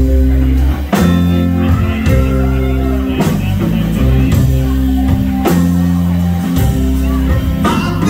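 Live rock band playing loudly: electric guitars, bass and drums hold long chords, with a cymbal crash on each chord change every second or two.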